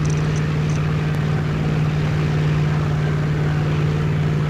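A motorboat engine running steadily: a constant low drone with a fine, rapid pulse.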